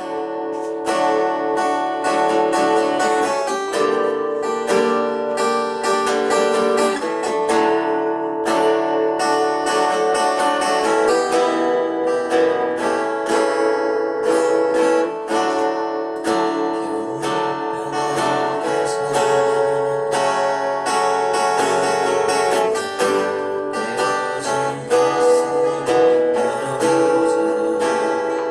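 Acoustic guitar strumming and picking chords, an instrumental passage that starts suddenly from silence.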